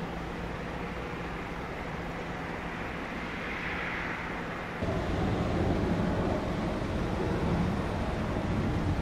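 Steady rushing noise of jet airliner engines at an airport, jumping abruptly louder about five seconds in.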